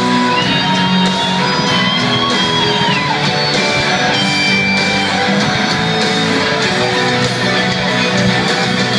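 A live rock band playing loudly. Over it, a lead line holds one long note that bends and then drops about three seconds in.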